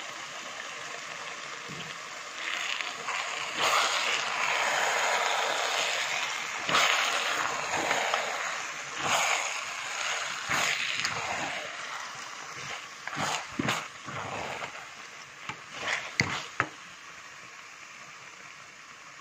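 A pot of potato-leaf stew simmering with a steady hiss while a wooden spoon stirs through it, wet scraping that is loudest through the middle. A few sharp clicks come toward the end.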